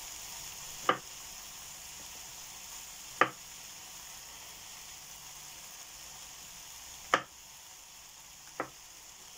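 A small kitchen knife knocking down onto a bamboo chopping board four times, cutting the ends off mushroom stalks, over a steady sizzling hiss from the pan on the stove.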